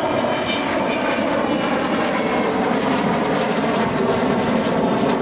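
Avro Vulcan XH558's four Rolls-Royce Olympus turbojets running steadily as the bomber flies its display.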